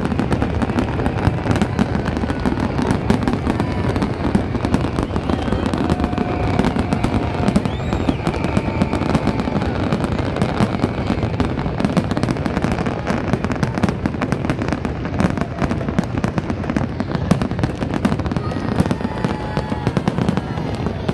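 Fireworks display in a dense barrage: aerial shells bursting one over another in rapid, overlapping bangs and crackles, with no let-up.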